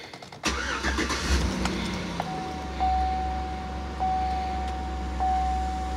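A 2008 Chevy Avalanche's 5.3L V8 idling with a low, steady rumble, heard from inside the cab. From about two seconds in, a dashboard chime sounds and repeats about once a second.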